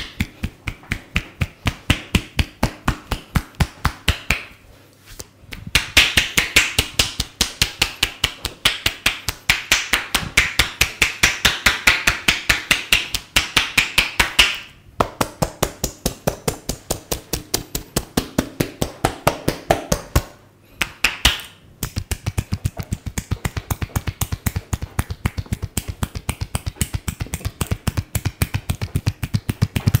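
Percussive head-massage strokes: a barber's hands striking in a fast, even rhythm of about five sharp slaps a second, with a few short breaks.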